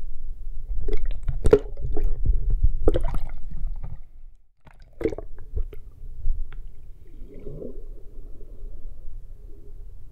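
Water sloshing and gurgling around an action camera held underwater in shallow surf, with a steady low rumble. Several sharp clicks and knocks come in the first half.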